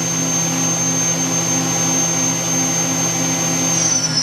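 Spindle of a 1998 Daewoo DMV-400 CNC vertical machining center running at 10,000 RPM, a steady high whine over the machine's hum. Near the end the whine starts to fall in pitch as the spindle slows down.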